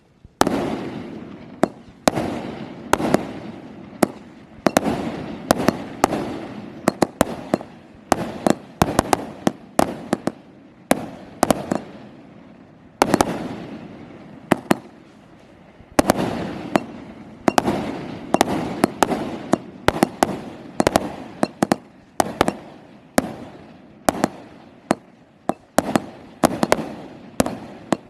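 A 49-shot firework cake (battery) firing shot after shot: sharp bangs come irregularly, about one to two a second, each trailing off, starting just after the opening.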